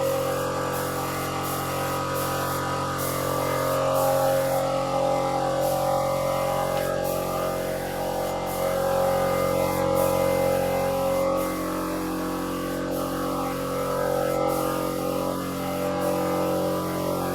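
Background music with sustained tones and a steady beat.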